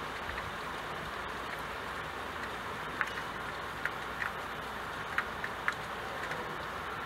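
Steady rain falling on a window pane, an even hiss with a handful of sharper drop ticks scattered through it.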